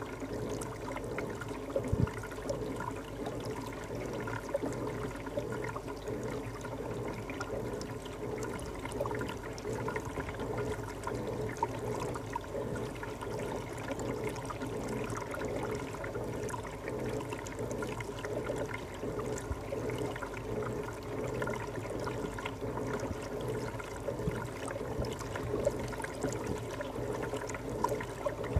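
Reef aquarium's water circulation: water trickling and gurgling steadily, with a steady low hum under it.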